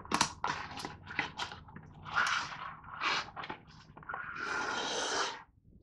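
Cardboard box flaps being pried open and a clear plastic clamshell tray worked out of the box: a quick run of short scrapes and rustles, a few more, then a longer scrape about four seconds in.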